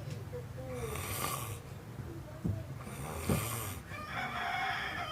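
Snoring: one snore about every two seconds, each a noisy, rough breath.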